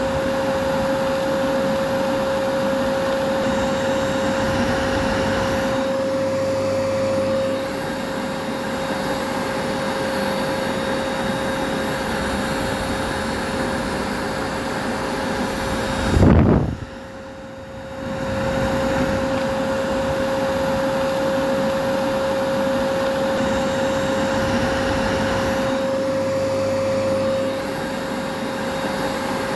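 Vacuum cleaner running steadily, a rushing noise with a steady whine. About 16 seconds in there is one loud low thump, and the sound drops briefly for about a second and a half before it picks back up.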